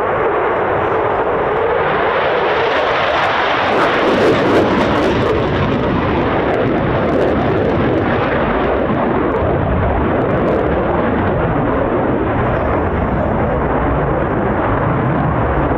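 Eurofighter Typhoon's twin jet engines heard from the ground as it flies a display overhead: loud, steady jet noise that swells briefly with a crackle about four seconds in.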